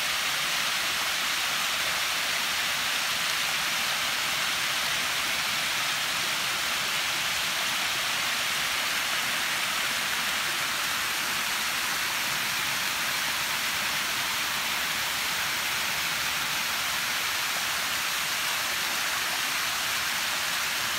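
Steady rush of water from a small creek cascading over bare rock ledges.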